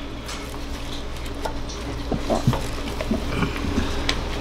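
Wet squelching of a gloved hand working inside a raw turkey's body cavity and pulling out the giblet bag, a run of short irregular squishes over the second half. A steady low hum runs underneath.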